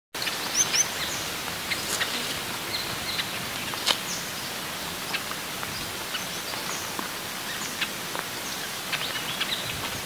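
Long-tailed finches calling: scattered short, high chirps and quick down-slurred notes over a steady hiss of background noise, a few louder chirps in the first four seconds.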